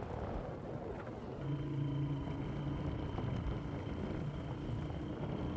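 A vehicle engine runs steadily as the vehicle drives along a rough dirt track, over a low rumble. A steady engine hum settles in about a second and a half in.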